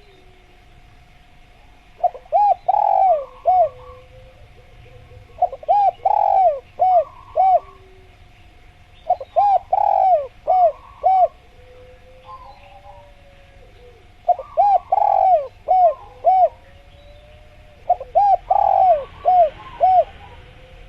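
Spotted dove (tekukur) cooing: five phrases of several quick arching coo notes, one phrase every three to four seconds. Under them run a faint steady tone and softer calls of other birds.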